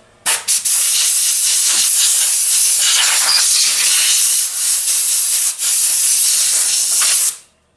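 A loud, steady hiss that starts just after the beginning, runs about seven seconds with a few brief dips, then stops.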